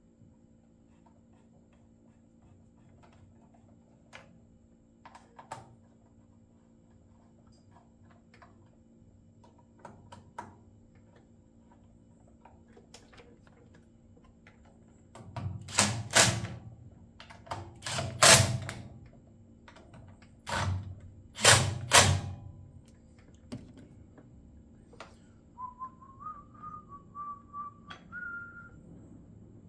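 A cordless power driver run in four short bursts, each about a second long, on the chainsaw, with small clicks of parts being handled before it. Near the end a few whistled notes that step up in pitch.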